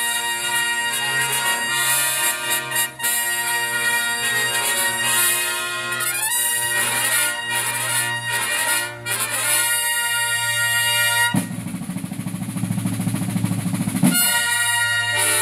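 A herald trumpet ensemble of long-bell trumpets and lower brass plays a fanfare in full chords. About two-thirds of the way through the brass stops for a roughly three-second drum roll on rope-tension field drums, then comes back in.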